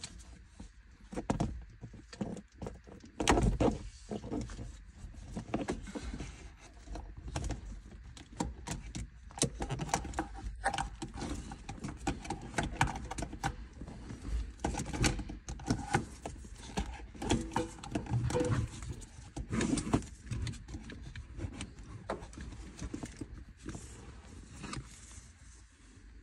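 Irregular knocks, clicks and rustles of new gear selector cables and plastic trim being handled and fed through the van's floor, with louder knocks about 3 s in and around 15 and 20 s.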